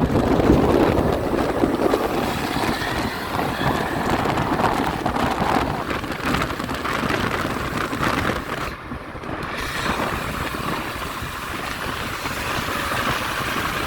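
Traffic noise from a moving vehicle, with wind rumbling on the microphone and no horn playing.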